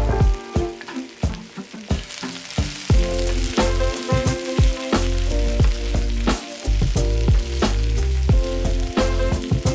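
Food sizzling as it fries in a pan, with stirring, under backing music with a steady beat. The sizzle grows fuller about two seconds in.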